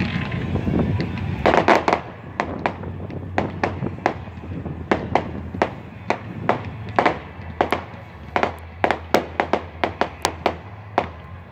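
Aerial fireworks popping in a rapid, irregular string of sharp bangs, several a second, starting a moment in, with a dense cluster at first. A steady low hum sits underneath.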